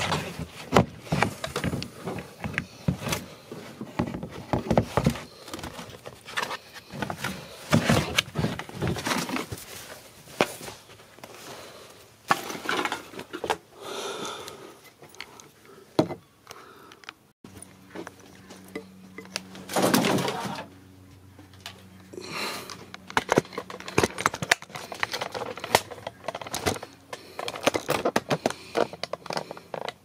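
Irregular clicks, knocks and rustling as hands work at the inside of a hatchback liftgate, handling its plastic trim and a loose plastic sheet, with one longer, louder scrape about twenty seconds in.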